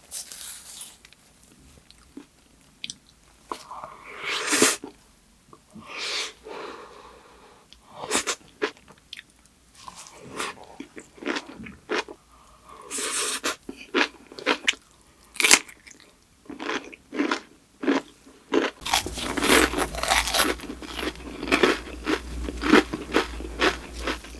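Close-miked eating sounds: crisp crunching bites and wet chewing of kimchi, coming in irregular bursts with short pauses. They become denser and louder with a low hum underneath for the last few seconds.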